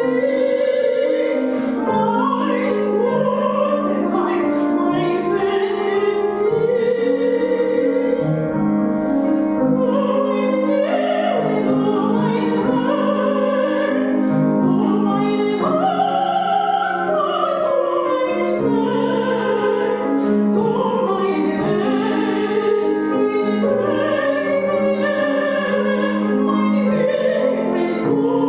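Classical art song: a trained voice singing with vibrato over piano accompaniment, without a break.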